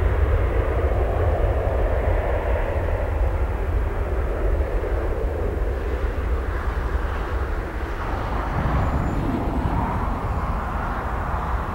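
Airbus A320 airliner on final approach, its twin IAE V2500 turbofan engines heard as a steady jet rumble with a deep low drone underneath.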